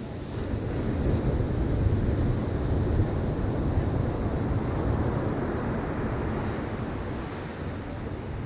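Ocean surf breaking on a sandy beach, with wind buffeting the microphone. The wash of the waves swells about a second in and slowly eases off.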